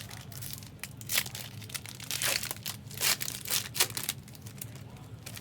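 Plastic or foil wrapping crinkling and tearing in irregular rustling bursts, the kind of handling that goes with opening trading-card packaging, over a low steady hum.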